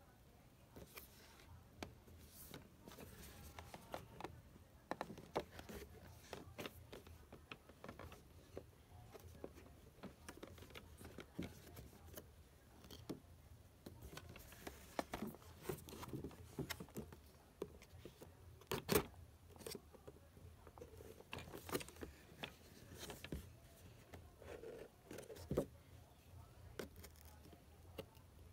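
Cardboard toy-car box with a clear plastic window being handled and opened by hand: light, irregular scrapes, taps and crinkles of card and plastic, with a sharper click about two-thirds of the way through.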